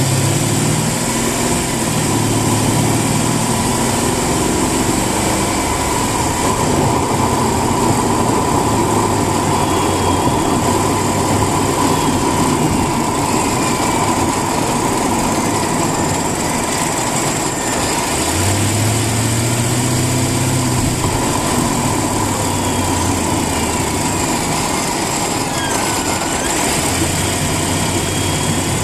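Mercedes-Benz CLK550's 5.5-litre V8 running, with its pitch rising and holding briefly twice, near the start and about two-thirds through, as it is revved, over a steady high whine. This is the weird noise the owner is trying to track down.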